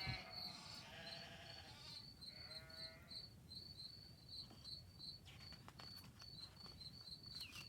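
Sheep bleating twice in the first three seconds, quietly, as a sound effect for the sheep page, over a faint high chirping that repeats about three times a second.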